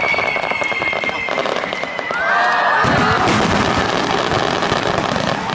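Starmine fireworks barrage: a dense crackle of bursting stars under a long whistle falling slowly in pitch, then heavier booming bursts from about three seconds in.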